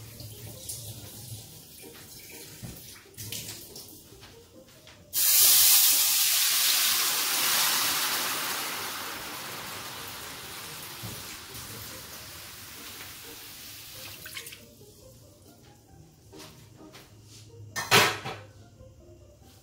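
Water poured into a hot AMC stainless-steel pan crusted with browned chicken residue hisses and sizzles loudly the instant it hits, then boils up and fades over about nine seconds as it deglazes the pan. A single sharp knock comes near the end.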